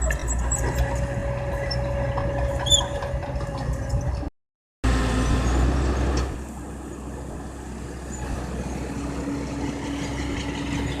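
Heavy diesel machinery running steadily, from an excavator and dump trucks at work, with a few faint clinks. The sound cuts out briefly about four seconds in, then comes back and runs quieter for the rest.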